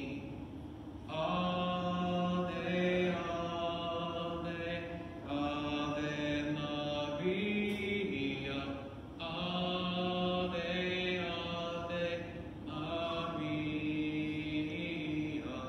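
A slow sung chant: a hymn sung in long, held phrases of about four seconds each, with short breaths between them.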